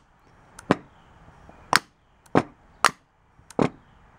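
About half a dozen sharp, irregularly spaced clicks as a 12-volt jumper lead is touched to a new AC compressor magnetic clutch coil on the bench, energizing the coil to pull the clutch plate up.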